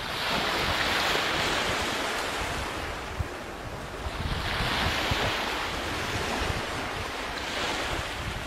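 Ocean surf: waves washing in and drawing back, swelling and fading three times in slow surges.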